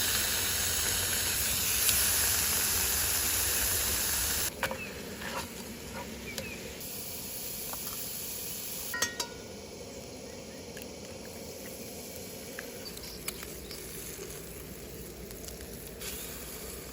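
Ham steak sizzling in a frying pan. The sizzle is loudest for the first four seconds or so, then drops to a quieter hiss with a few light clicks and taps.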